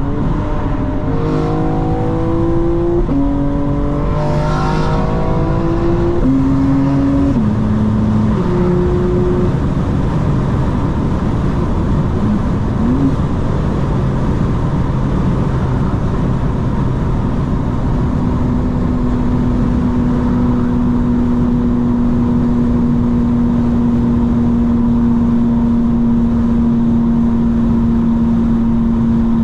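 BMW M4 Competition's twin-turbo inline-six accelerating through the gears. Its pitch climbs and drops back at each upshift in the first several seconds, and later it settles into a steady drone at cruising speed.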